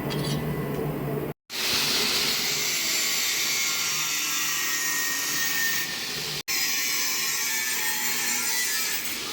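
Angle grinder with a cut-off disc cutting steel strip, a steady high hiss, in segments that stop and restart abruptly twice.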